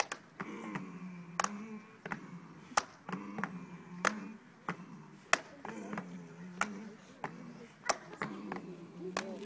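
A group of men chanting together in low voices with sharp claps on a steady beat, about three every two seconds: a fraternity line's step chant.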